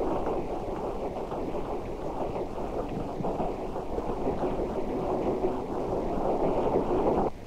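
A passing train's steady rumble and rushing noise, cutting off abruptly near the end.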